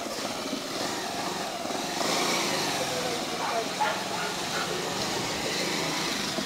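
Motorcycle engine running at low speed, under steady rushing noise from the ride.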